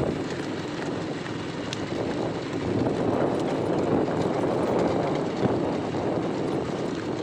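A vehicle's engine running steadily, a continuous drone with a rushing noise over it.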